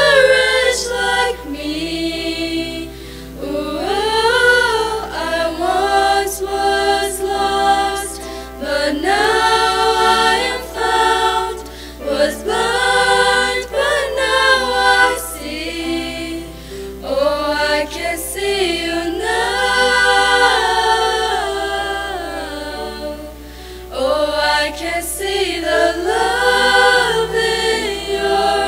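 A small group of girls' voices singing a worship song together, in sung phrases of a few seconds with short breaks between them.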